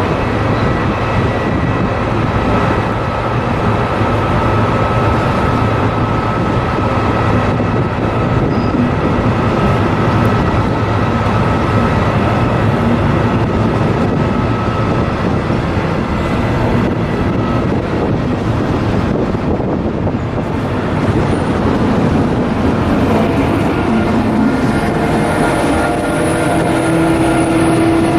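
Train running: a steady, loud rumble with faint whining tones, and a new, stronger whine coming in near the end.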